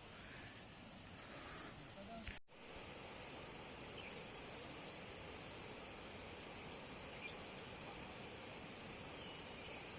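Steady high-pitched chirring of insects, cut off abruptly about two and a half seconds in, after which only a faint, even outdoor hiss remains.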